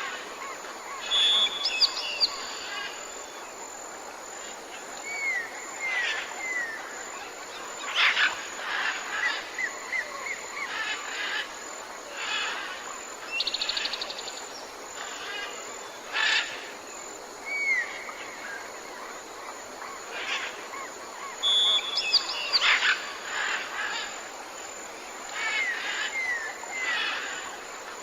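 Several birds chirping and calling over a steady background hiss, with sharp chirps and short whistles that glide downward. The same run of calls comes round again about twenty seconds later.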